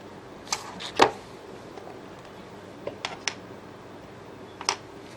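Six or so small, sharp clicks and taps, scattered irregularly, from handling the disassembled smartphone and small tools on a workbench.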